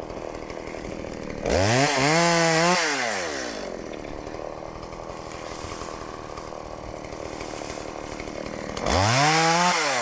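Small chainsaw revved up twice, each time rising quickly in pitch, holding for about a second, then falling back. A steady lower running sound continues between the revs.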